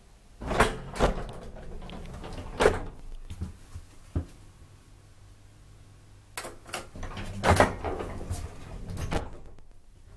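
Irregular mechanical clunks and clacks in the car of a 1957 Bruno Haack traction elevator: its doors and workings knocking. A few sharp knocks come in the first four seconds, then a busier run of knocks from about six to nine seconds in.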